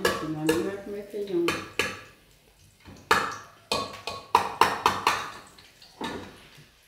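Metal spoon stirring in an aluminium saucepan, clinking against the pan about four times a second; it stops about two seconds in and starts again about a second later.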